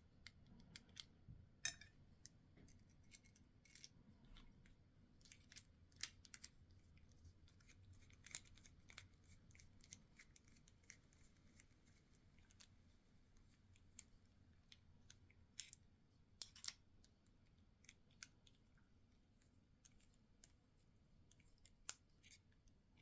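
Faint, scattered small clicks and scrapes of metal parts being handled as an American Lock 1100 padlock is reassembled and its plate fitted. The clicks come irregularly, a few of them sharper than the rest.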